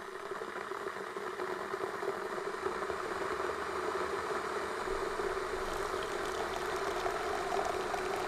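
A kitchen appliance running with a steady hum and hiss that grows slowly louder, heard while filter coffee is being made.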